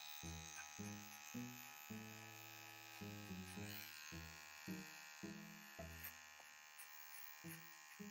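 Small cordless electric pet grooming trimmer buzzing steadily as it is worked over a cat's paw pads. Background music with low bass notes changing about every half second plays under it.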